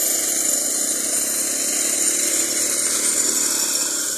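Twin small engines of a tracked walk-behind brush cutter running steadily as it mows through ferns and undergrowth.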